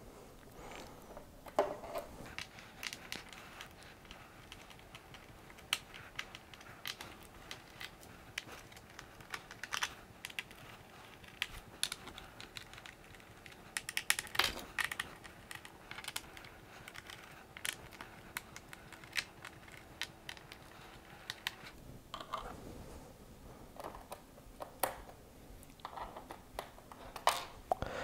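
Small screwdriver working the screws out of a laptop's plastic bottom panel: scattered, irregular small clicks and light taps of the driver tip and screws against the case, over a faint steady hum.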